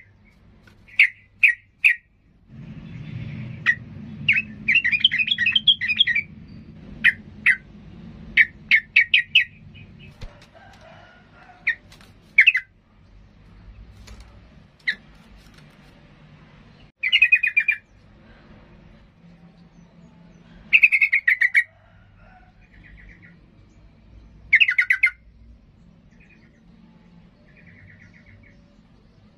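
Yellow-vented bulbul (trucukan) giving short, sharp chirping calls, some in quick clusters of notes, with pauses of a few seconds between bursts. A faint low steady hum runs underneath from about two and a half seconds in.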